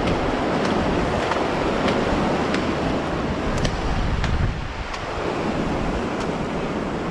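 Ocean surf washing on the beach, with wind buffeting the microphone; it gets slightly quieter about four and a half seconds in.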